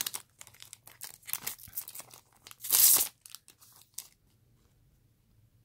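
Foil wrapper of a trading-card booster pack being torn open and crinkled by hand: a run of crinkles and rips over about four seconds, the loudest tear about three seconds in.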